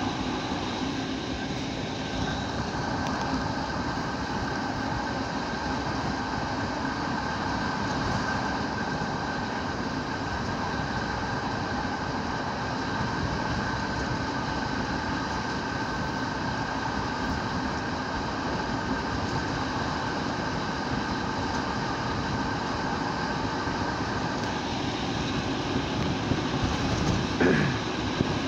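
ALn668 diesel railcar running at speed, heard from on board: a steady drone of underfloor diesel engines and wheels on the rails. A brief louder, falling sound comes near the end.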